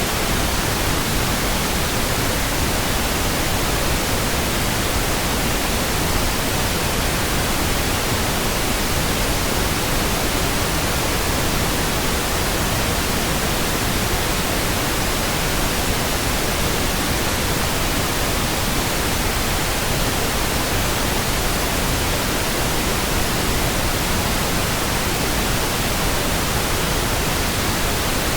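Steady pink noise: an even, unchanging hiss spread across all pitches, with no breaks or sudden sounds.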